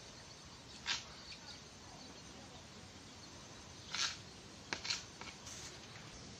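A knife cutting folded maida dough into noodles, the blade tapping on a plastic cutting board: a single short tap about a second in, then several more close together between about four and five and a half seconds in.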